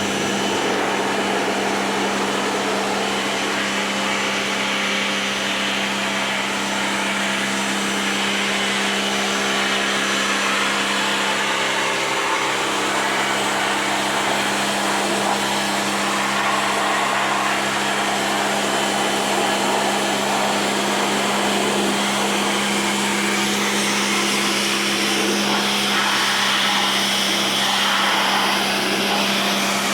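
Electric pressure washer pump running steadily, a constant hum under a broad hiss, as water is sprayed onto an air-conditioner coil to clean it.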